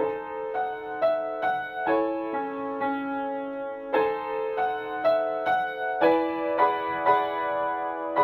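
Piano music: a gentle melody of single notes struck about twice a second over held chords.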